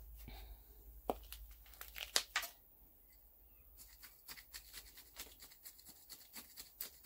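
Potting soil being pressed down and poked around a tree's roots in a pot to work out air pockets: a run of irregular gritty scrapes and small crunchy clicks, coming thicker in the second half.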